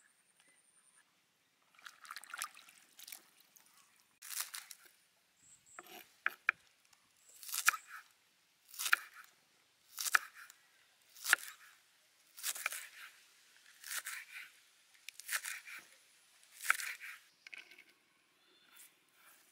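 Kitchen knife chopping spring onions on a wooden chopping board: about a dozen slow, even cuts starting about two seconds in, roughly one a second, each a short crisp stroke ending in a knock of the blade on the board.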